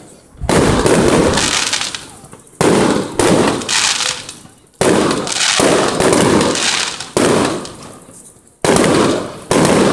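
Aerial fireworks bursting overhead: about seven loud bangs one after another, a second or two apart, each dying away before the next.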